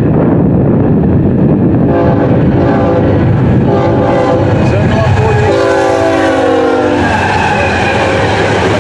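BNSF freight locomotive's air horn sounding in several blasts as the train approaches, starting about two seconds in, the last blast the longest and ending about seven seconds in. Under it a steady low rumble, and near the end the clatter of the locomotive's wheels going by.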